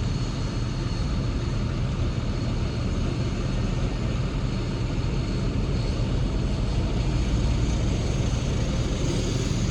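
Heavy diesel earthmoving machinery running steadily, a continuous low engine rumble with a faint high whine above it.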